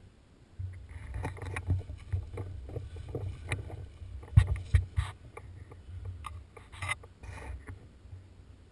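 Handling noise from a camera mounted on a paintball marker as the gun is shifted about: a low rumble with irregular knocks and scuffs, loudest about halfway through.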